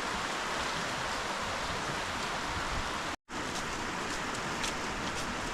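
Steady rushing of a stream running over stones, with a brief gap in the sound about three seconds in.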